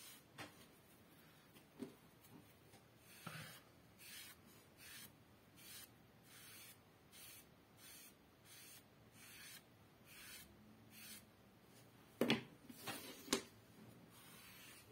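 A damp sponge wiping Resolene acrylic finish onto leather in soft, even swishing strokes, about two a second. Near the end there are two or three sharper knocks.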